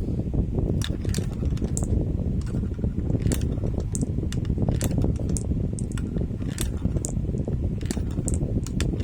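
Marbles rolling down a marble run track: a steady rolling rumble, with irregular sharp clicks and clacks as the marbles strike the track and each other.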